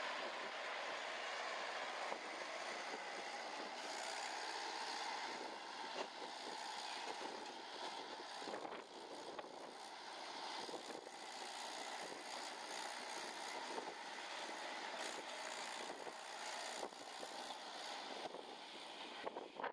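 Mahindra 475 DI tractor's diesel engine running steadily under load as it pulls a loaded trolley through mud, with wind noise on the microphone.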